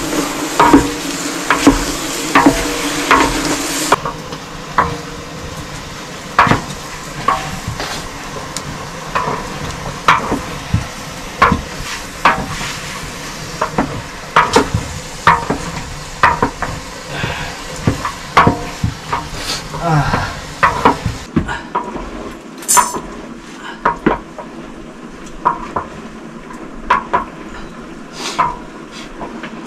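Pork sizzling as it fries in a pan, stirred with a utensil that knocks and scrapes against the pan about once a second. The sizzle changes abruptly a few seconds in, and about two-thirds through it drops away, leaving mostly the stirring knocks.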